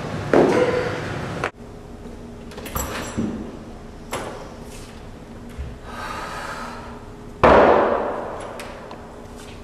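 Doors banging shut: a slam just after the start, a few light knocks and clicks, then a heavy slam about three-quarters of the way through that rings on for over a second.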